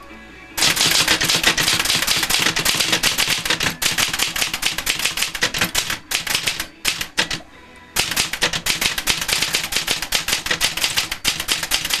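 Olivetti Linea 98 manual typewriter being typed on fast: a rapid, uneven run of typebar strikes and carriage clicks starting about half a second in, broken by two short pauses a little past halfway.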